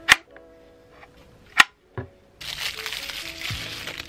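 Two sharp clicks about a second and a half apart from the hard plastic casing of a CD player being handled, then a clear plastic bag crinkling from about halfway through.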